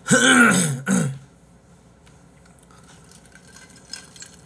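A man's voice briefly in the first second, then a quiet room with faint small clicks, and a short sip through a straw from a tumbler about four seconds in.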